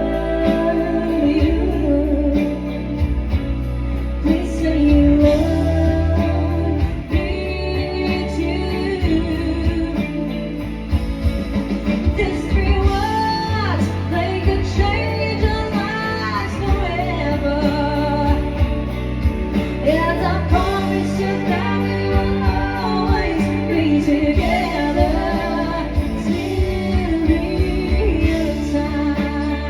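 Live band playing a slow pop love ballad: a sung melody line over guitar and bass.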